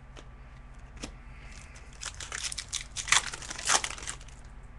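Foil wrapper of a hockey card pack crinkling and tearing as it is opened. The crackling comes in a cluster of about two seconds, starting about two seconds in.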